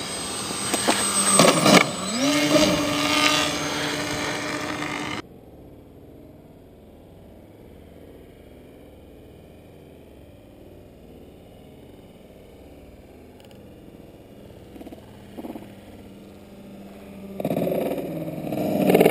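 The propeller motors of a scratch-built RC model plane running loud, their pitch swooping down as the throttle is pulled back and then holding steady. About five seconds in the sound drops abruptly to a faint distant hum. Near the end it turns loud again as the plane rolls on the ground, with the pitch rising.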